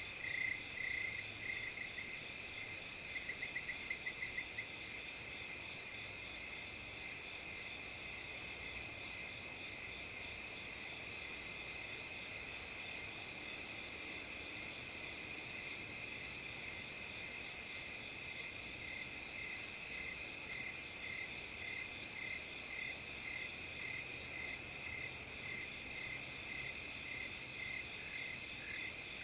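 A chorus of autumn crickets: several insects trill steadily at different high pitches, overlaid by short chirps repeated at an even pace. A quick run of chirps sounds in the first few seconds, and another row of evenly spaced chirps comes in about two-thirds of the way through.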